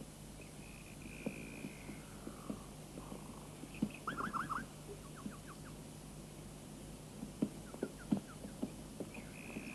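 Woodland birdsong: short whistled notes and quick runs of downward-sweeping chirps, with irregular soft knocks scattered through, over a steady low hum.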